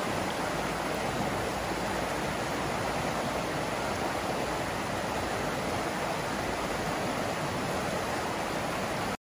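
Mountain stream rushing over rocks and through small rapids: a steady, even rush of water that stops abruptly near the end.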